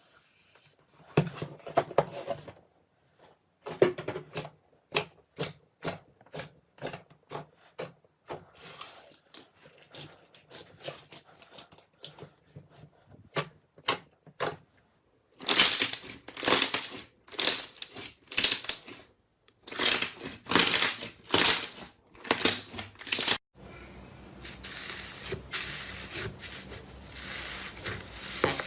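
Slime being squeezed and poked by hand, giving a run of quick sharp clicks and pops, then longer crackling squelches from about halfway in.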